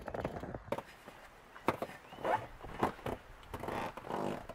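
Irregular knocks, clicks and rustling scrapes of fishing gear and fittings being handled inside a small inflatable boat.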